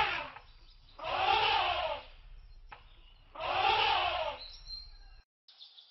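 Elephant trumpeting twice, each call about a second long and rising then falling in pitch.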